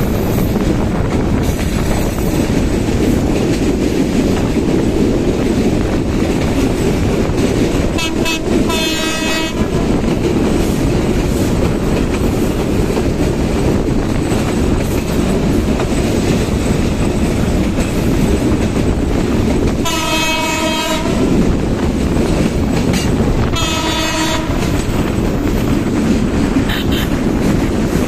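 Steady rushing noise of a passenger train running alongside a moving motorcycle, with wind on the microphone. Horn blasts sound four times: about 8 s in, a long one about 20 s in, another about 24 s in, and a short one near the end.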